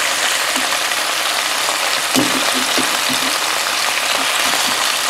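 Sirloin roast and vegetables sizzling steadily in a Cosori multi-cooker pot on its browning setting.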